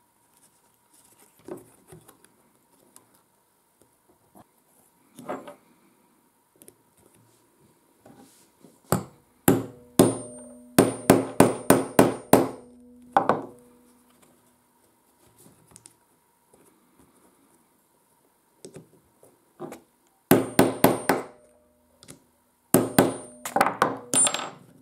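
A hammer striking a metal snap-setting punch to set press-stud fasteners into a leather sheath: sharp, ringing metallic blows, about three a second. They come in a run of about ten some nine seconds in, then two shorter runs near the end. Before them are faint sounds of leather and small parts being handled.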